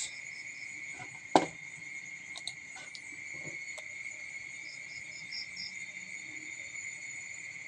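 Steady high-pitched insect trilling, with a short run of faint chirps about five seconds in. One sharp click about a second and a half in is the loudest sound.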